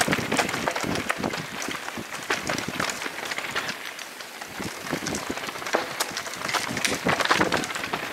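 Downhill mountain bike running fast over a rocky, loose trail: tyres crunching on stones and gravel, with a constant rattle of many small knocks from the bike, and wind buffeting the microphone. It eases off for a moment around halfway, then gets rougher and louder again.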